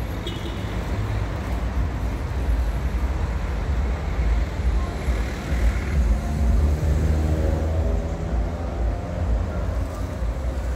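Steady low rumble of a running vehicle engine, with a noisy background.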